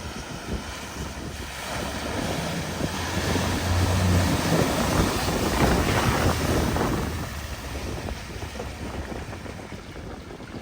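A vehicle driving through a flooded ford. The water rushes and splashes, swelling to its loudest about midway and then fading, with the engine faintly audible underneath.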